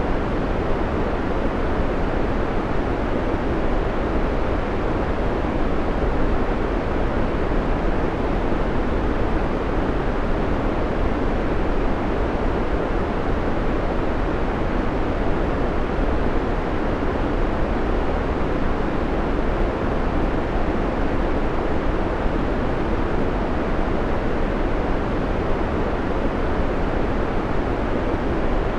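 Steady white noise: an even, deep rushing hiss that does not change.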